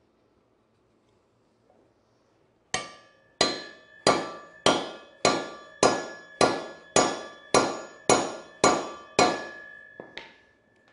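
A hammer striking the steel driver of a collet-type bearing remover about a dozen times, a little under two blows a second starting about three seconds in, each blow ringing metallically, with one lighter hit near the end. It is driving a sealed wheel bearing that is frozen in its aluminum motorcycle hub.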